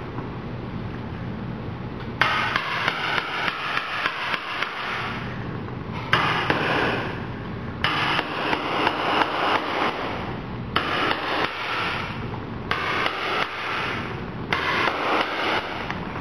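Repeated hammer strikes, a few a second, in several stretches that start and stop abruptly, after a couple of seconds of quiet room noise.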